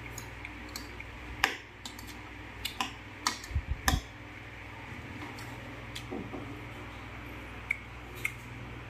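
Fork and chopsticks clinking against bowls while food is picked up: scattered sharp clicks, bunched together between about one and four seconds in, then a few more near the end, over a steady low hum.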